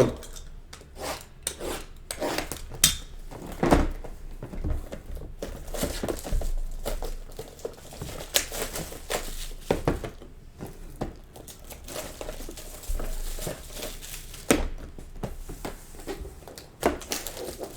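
Trading-card boxes and packaging being handled by hand: crinkling plastic wrap and irregular taps and thuds of cardboard.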